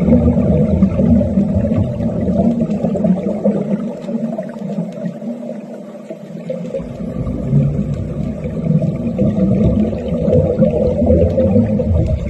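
Low, churning underwater rumble and bubbling from underwater wet welding at a submerged pile. It thins out and drops away for a few seconds near the middle, then comes back.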